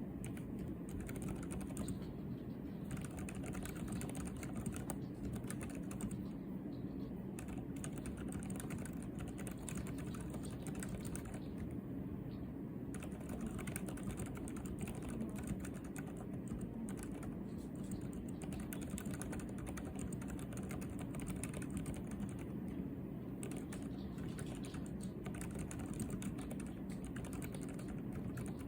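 Continuous fast typing on a Hansung GK707SE mechanical keyboard with 40 g silent brown switches: a dense, unbroken run of dull, low keystrokes with no pauses.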